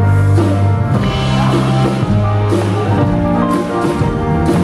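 Live rock band playing loudly, with a drum kit and guitars over a deep held bass line that shifts every second or two. The passage is instrumental.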